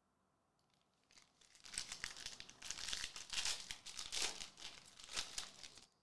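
Foil wrapper of a 2023-24 Donruss Soccer hobby pack being torn open and crinkled by hand, starting about a second in and stopping abruptly just before the end.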